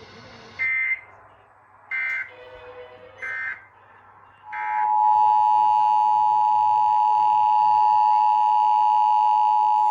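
Emergency Alert System signalling: four short bursts of SAME digital data tones, about 1.3 s apart, then from about halfway in the steady two-tone EAS attention signal (853 and 960 Hz) sounding continuously.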